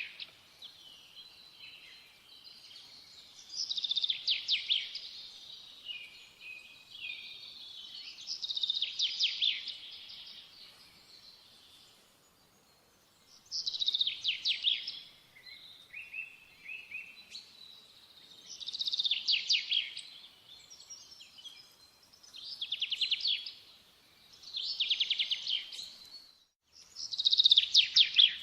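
A songbird singing in short, rapidly trilled, high-pitched phrases, about seven of them, separated by brief pauses.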